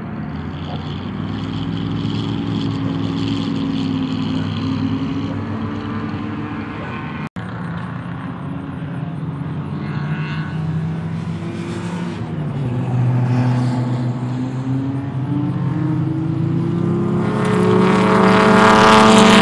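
Race car engines running hard on a circuit, broken once by a momentary dropout about seven seconds in. Near the end the big Ford 460 V8 of a 1975 Ford LTD-based race car grows much louder with its pitch rising as it accelerates toward the microphone.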